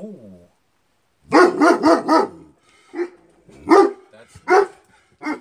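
Large livestock guardian dog barking: a brief falling whine at the very start, a quick run of four loud barks about a second and a half in, then single barks spaced under a second apart. Alarm barking at something outside the pen.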